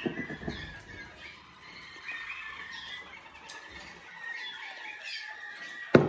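Canaries chirping and singing, with a held high note under the chirps. A few soft handling knocks at the start and one sharp knock near the end.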